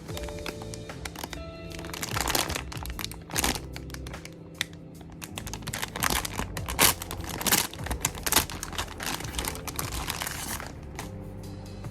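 Packaging crinkling and crackling in irregular handfuls as a mailed package is unwrapped by hand, over background music. The crinkling thins out near the end.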